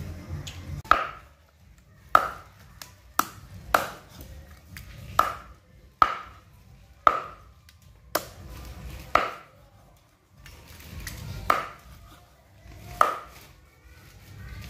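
A meat cleaver chopping raw chicken on a round wooden chopping board: about eleven sharp chops, unevenly spaced one to two seconds apart, each with a brief ring.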